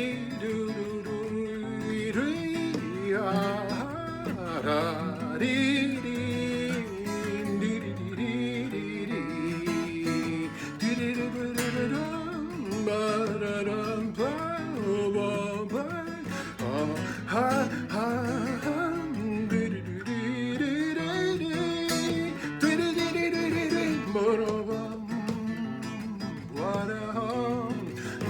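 Acoustic guitar playing an instrumental break in a folk song, a melody line moving over steady low notes.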